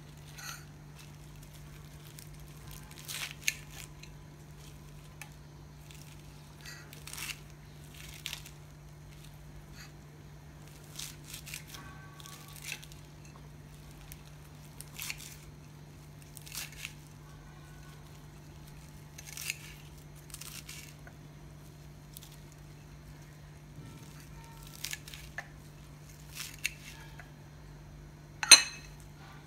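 Hands tearing and snapping fresh leafy greens off their stems, in scattered short crackles and rustles of the leaves. Near the end comes one sharper, louder snip of scissors cutting the leaves. A faint steady hum runs underneath.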